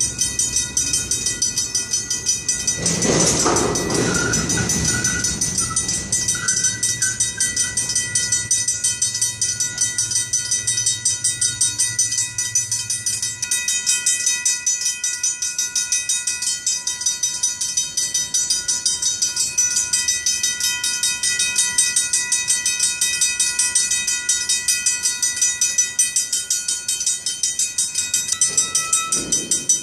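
Two Griswold mechanical crossing bells ringing continuously with fast, even strikes. Under them a slow freight train of empty flatcars rumbles over the crossing; the rumble fades after about 13 seconds. About 3 seconds in there is a brief, louder rushing noise.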